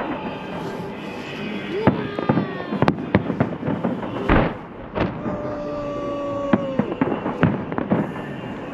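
Salute fireworks going off overhead: a rapid string of sharp bangs and crackles, the strongest about four seconds in. In the middle a steady held tone sounds for a second or two.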